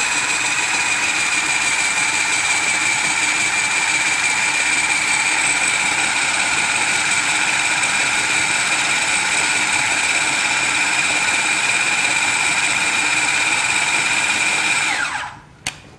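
Electric food chopper's motor running steadily with a high whine as it grinds wheat and barley with a little water. Near the end the motor winds down and stops.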